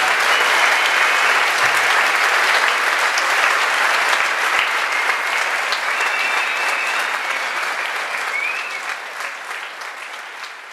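Audience applauding, a dense steady clapping that fades away over the last few seconds.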